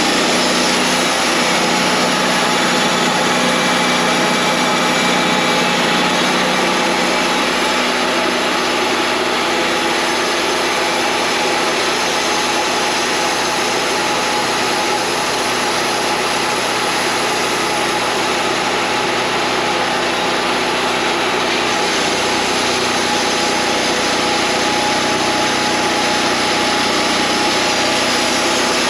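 Wood-Mizer LT40 band sawmill running steadily, its engine and blade drive making a loud, even machine sound; a lower hum joins about three-quarters of the way through.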